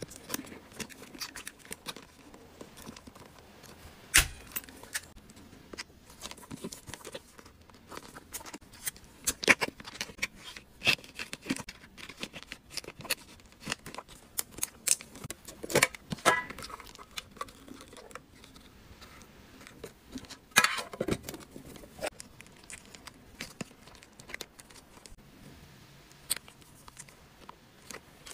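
Thin plastic and cellophane packaging bags crinkling and rustling as they are handled, broken by many sharp clicks and snaps, some of them from a handheld mini bag sealer clamping a bag shut.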